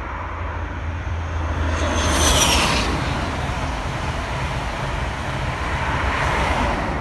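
Passenger train passing at speed. Its rushing noise swells about two seconds in, with a brief falling whine, eases off, then rises again near the end as the rear of the train goes by.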